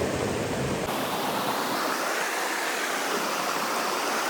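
Stream water rushing, a steady hiss of flowing water; about a second in it changes abruptly to a higher, thinner hiss.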